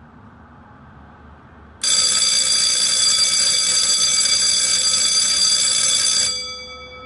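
SUNS wall-mounted electric alarm bell, switched on by a programmable break timer. It starts suddenly about two seconds in and rings loudly and steadily for about four and a half seconds, then stops, with the gong ringing on briefly as it fades.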